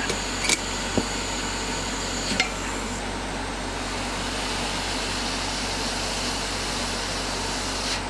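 Hot air rework station blowing a steady hiss from about three seconds in until it cuts off at the end, over the steady drone of an extractor fan and air conditioner. A few light clicks of tweezers come in the first couple of seconds.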